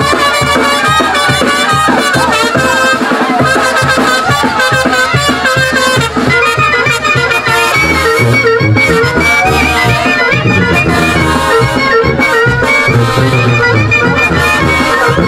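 Traditional folk dance music: a busy melody line over a steady beat.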